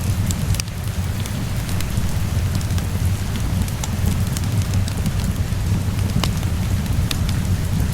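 Steady rain falling together with a crackling wood fire: scattered sharp pops and clicks over an even hiss and a steady low rumble.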